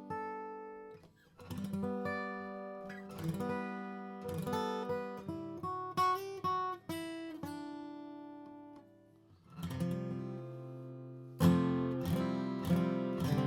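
Martin D-18 Golden Era Custom mahogany acoustic guitar, strung with light strings, played with a mix of picked single notes and strummed chords. The playing pauses briefly about a second in and again around nine seconds, then resumes with a loud strum.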